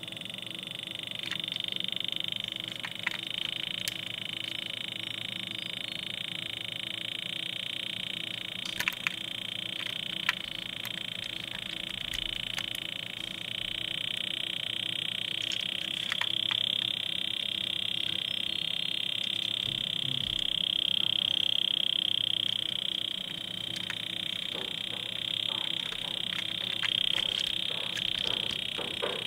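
A steady high-pitched chirring drone, with scattered small clicks and taps from a diecast toy car being handled, which grow more frequent near the end.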